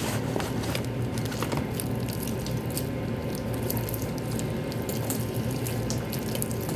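A large batch of clear Elmer's glue slime being worked and stirred by hand, making irregular wet squelches and small clicks over a steady hiss.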